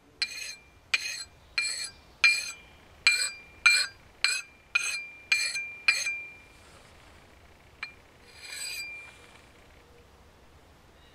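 Sharpening stone stroked along a steel axe blade: about ten quick strokes a little over half a second apart, each leaving the axe head ringing briefly. Near the end comes a single click and one softer rub of stone on steel.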